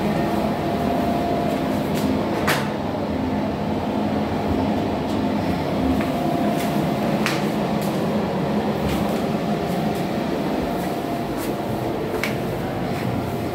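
Steady low mechanical rumble with a faint hum, broken by a few sharp clicks.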